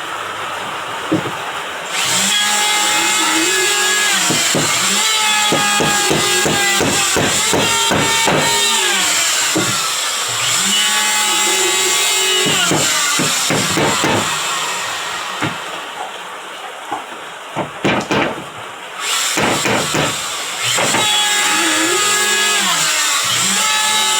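Power tool working wood, its motor pitch sagging and recovering several times, with sharp knocks throughout.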